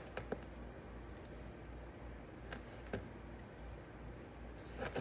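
Faint, scattered clicks and light scraping from a spoon and container as cinnamon sugar is sprinkled over canned peach slices in a baking pan. A few quick clicks come right at the start.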